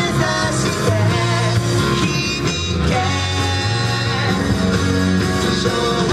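Rock song with singing and a steady bass line, played through outdoor loudspeakers.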